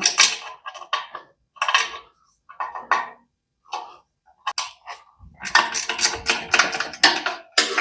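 Metal hand tools clinking on the air compressor's motor-mount bolts as they are loosened: a few separate clanks, then a quick run of sharp clicks over the last couple of seconds.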